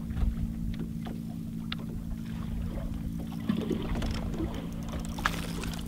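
Boat motor humming steadily over low wind and water noise, with a few faint clicks.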